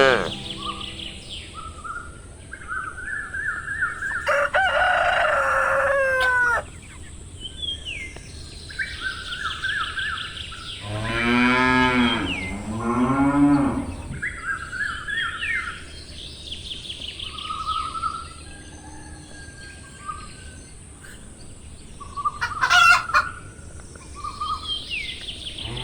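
Farmyard animal sounds: hens clucking now and then, two long cow moos in the middle, and small birds chirping, over a faint steady hiss.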